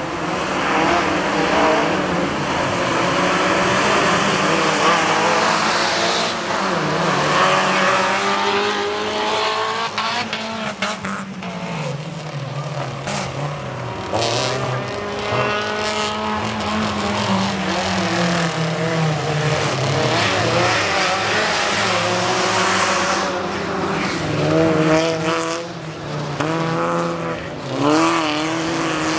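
Engines of rally-type hatchback race cars revving hard on a dirt track, the pitch climbing and falling again and again through gear changes and corners as several cars race past.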